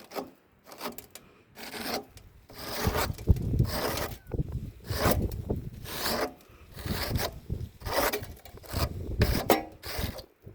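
A hand tool rasping on wood in repeated back-and-forth strokes, about one or two a second, starting hesitantly and settling into a steady rhythm after about two seconds.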